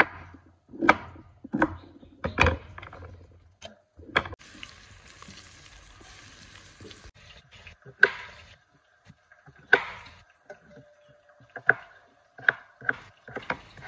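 Chef's knife chopping a raw carrot on a wooden cutting board, a handful of sharp knocks about a second apart. Then about three seconds of steady sizzling as onions and tomatoes fry in a steel kadai, followed by the knife cutting peeled potatoes on the board, the knocks coming quicker near the end.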